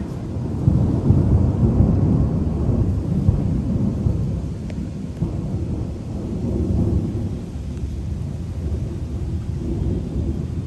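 Thunder rumbling: a long low roll that swells about a second in, eases off, and swells again around six seconds.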